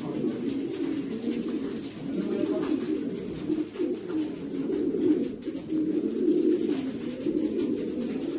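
Racing pigeons cooing, many birds at once in an unbroken, overlapping chorus.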